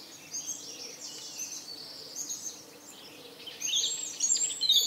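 Small birds chirping in quick high-pitched runs, busiest and loudest from about three and a half seconds in, over a faint bed of outdoor noise.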